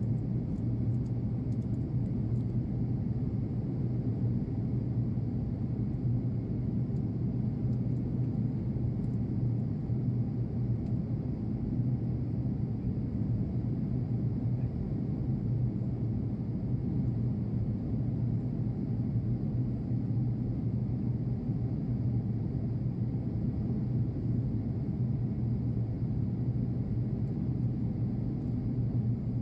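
Steady airliner cabin drone of engines and rushing air heard from inside the cabin, with a strong low hum, as the plane descends toward landing.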